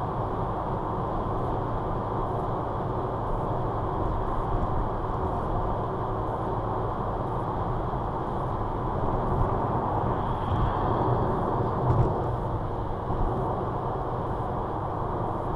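Car at motorway cruising speed heard from inside the cabin: a steady rush of tyre and road noise over engine hum. It swells slightly about ten seconds in, with a brief thump at about twelve seconds.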